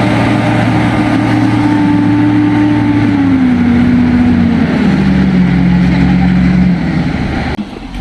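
Heavy machine's engine running, its pitch stepping down twice, about three and five seconds in. Near the end the sound cuts abruptly to a quieter one.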